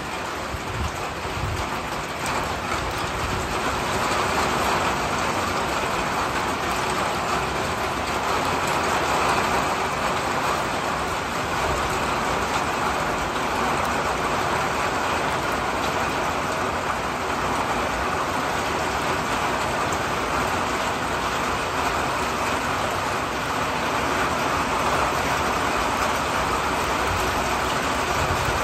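Rain falling steadily, an even hiss that grows a little louder about four seconds in and then holds.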